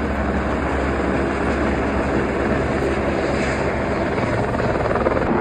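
Helicopter flying overhead, its rotor and engine noise steady and loud.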